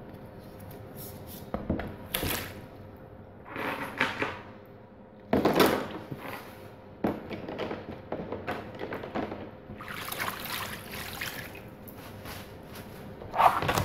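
Water splashing and sloshing in a plastic tub as steel motorcycle brake discs and their bolts are laid in it to soak, in several separate splashes.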